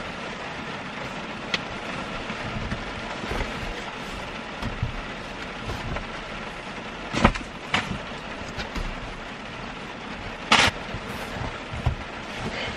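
Rain falling steadily on the car, heard from inside the cabin, with a few knocks and bumps as someone climbs between the seats; the loudest knocks come about seven seconds in and about ten and a half seconds in.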